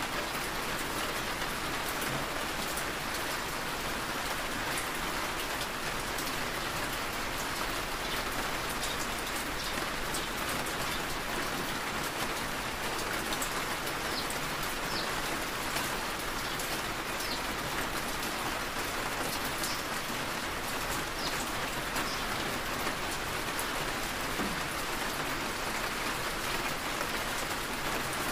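Steady rain on a car's roof and windshield, heard from inside the cabin, an even hiss scattered with many small drop ticks.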